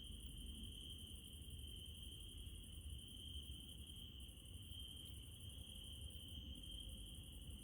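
Night insects trilling steadily and faintly: one continuous high trill, with a finer, higher-pitched pulsing chirr above it, over a low rumbling background.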